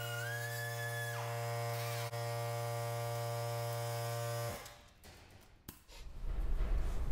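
Steady electric motor hum from a portable air compressor running, with a high whine from the cutting tool that wavers in pitch and stops about a second in. The compressor hum cuts off abruptly about four and a half seconds in. A click and louder handling noise follow.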